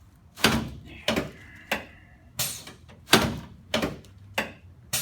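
A chiropractic adjusting table clunking: a run of about seven sharp knocks, roughly two-thirds of a second apart.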